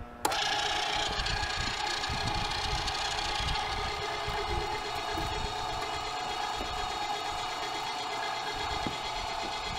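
Stainless MEAT! Your Maker electric meat grinder switched on a moment in, its motor then running with a steady whine as it grinds seasoned venison trim through the fine plate. This is a second pass through the grinder to blend the seasoning and cure into the meat.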